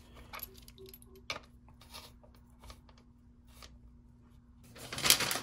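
Faint clicks and light metal-on-plastic handling as the nut of a braided stainless-steel supply hose is fitted and threaded onto the inlet of a plastic Tushy bidet attachment, with one sharper click about a second in.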